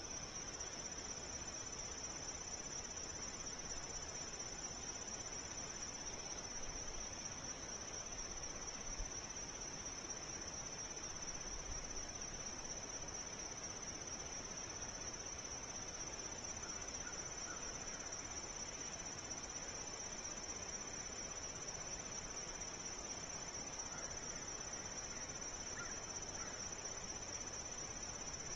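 Insect chorus, a steady high-pitched trill with no pauses, over the even hiss of a trail camera's microphone.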